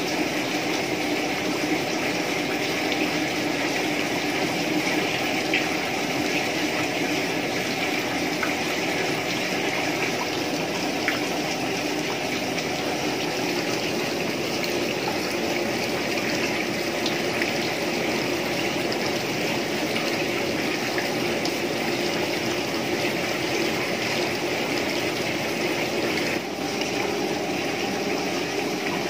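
Thin stream of freshly distilled rice spirit running from a pot still's metal outlet pipe and splashing steadily into a plastic basin below.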